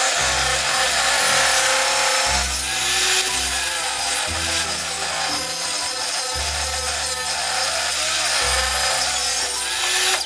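A power saw cutting through wood: a steady, loud rasping hiss with no stroke rhythm, which cuts off sharply at the end. Background music with a bass line that changes note about every two seconds plays underneath.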